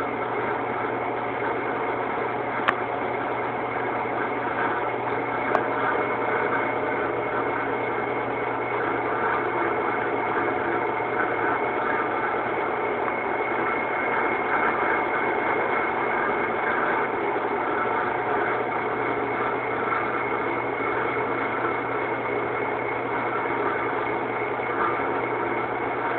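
1973 Joinville 217RCN lathe running: an even mechanical hum with a steady high whine over it, and two sharp clicks in the first six seconds.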